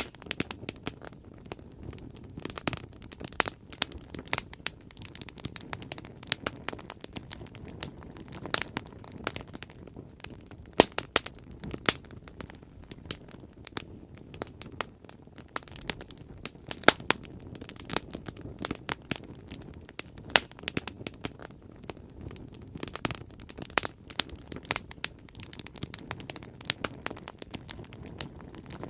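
Bonfire crackling: wood burning with irregular sharp pops and snaps, some much louder than others, over a steady low rush of the flames.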